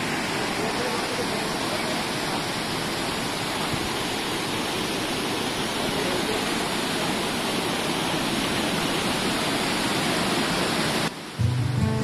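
Steady rushing of a small waterfall cascading over rocks. About eleven seconds in it cuts out and background music begins.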